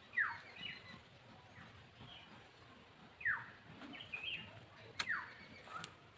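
Bird calls: a short falling call repeats three times, about two to three seconds apart, with fainter chirps between.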